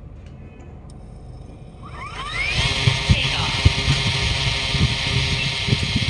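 DJI Flip drone's motors starting about two seconds in, their pitch rising, then the propellers spinning at a steady whir.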